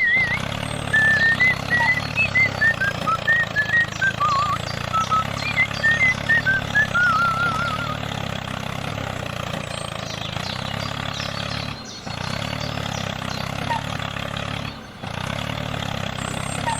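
Small electric motor of a DIY model tractor running steadily with a low hum, briefly cutting out twice in the second half. High warbling chirps sound over it during the first half.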